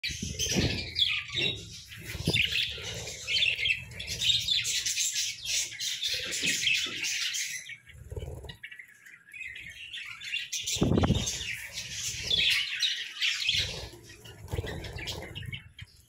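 A flock of budgerigars chattering and chirping continuously, with occasional low thumps and wing flutters. The chatter eases briefly about eight seconds in, then picks up again.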